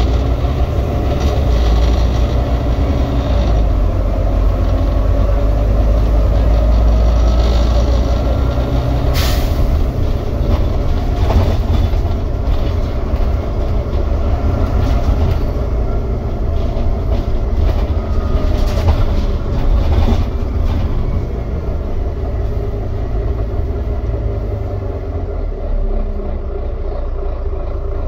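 Ride noise on the upper deck of a moving Volvo B9TL Wright Gemini double-decker bus: a steady low rumble of the diesel engine and road, with occasional knocks and rattles from the body, the sharpest about nine seconds in.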